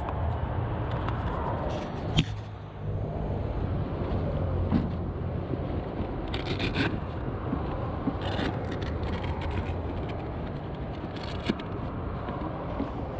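Close handling noise of hands working a LiPo battery pack and its wire leads in an RC truck's battery tray: rustling and scraping with a few sharp clicks, over a steady low hum.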